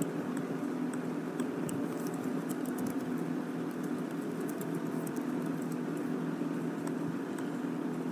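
Faint, irregular light tapping over a steady low room hum, typical of fingers typing on a phone screen.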